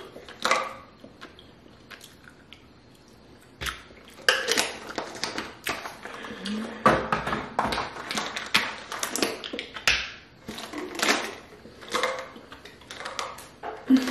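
Wet mouth noises of chewing a mouthful of gummy vitamins: irregular smacks and clicks, quiet for the first few seconds and then coming thick and fast.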